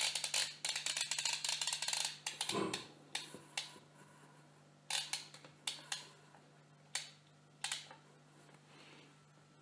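Plastic Play-Doh ice cream maker's press clicking rapidly for about two and a half seconds as the top is pushed down to squeeze dough out into a cone, with a short squeak as it finishes. After that come a few scattered plastic clicks and taps as the toy is handled.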